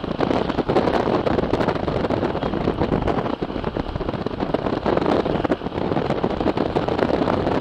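Strong wind buffeting a camera microphone: loud, rough noise that keeps surging and easing with the gusts.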